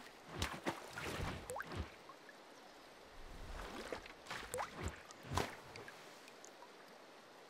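Water splashes, drips and bubbly plops, some with a short rising pitch, coming in two clusters: one in the first two seconds and one from about three to five and a half seconds in.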